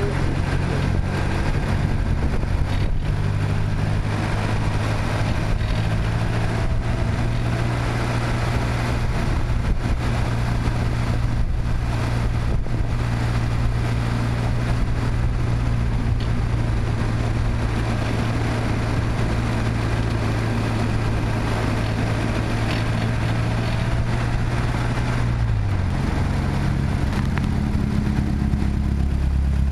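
Car engine pulling at a fairly steady pitch with heavy wind and road noise, heard through a camera mounted on the front grille during an autocross run. The engine note rises right at the start and drops off about three-quarters of the way through as the car slows.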